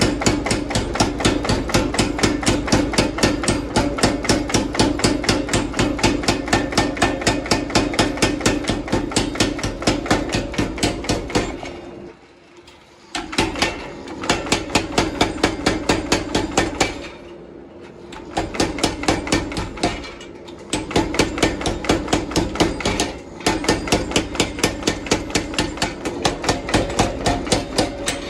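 Power hammer pounding a glowing pattern-welded steel billet in a fast, steady run of blows, several a second, drawing it out into flat bar, over a steady hum. The blows stop briefly a few times from about twelve seconds in.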